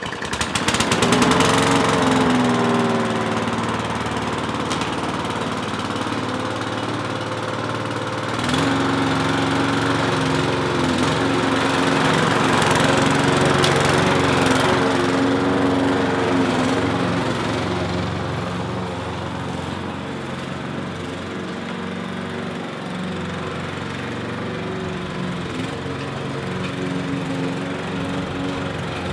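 Victa petrol push lawn mower's engine catching just after a pull-start and revving up, then running steadily while mowing grass. It gets louder about eight seconds in and eases off a little toward the end as the mower moves away.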